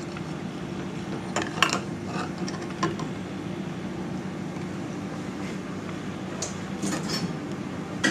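Bar spoon clinking against a column of ice and the glass while a gin, lime and soda highball is stirred: scattered light clicks over a steady low hum.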